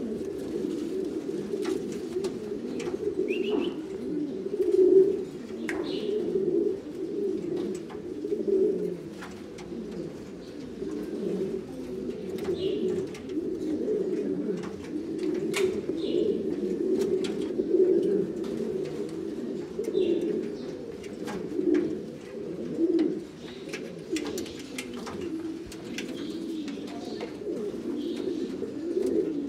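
Buchón Gaditano pouter pigeons cooing, several at once, so the low rolling coos overlap into an unbroken, rising and falling murmur. A few faint sharp clicks come through over it.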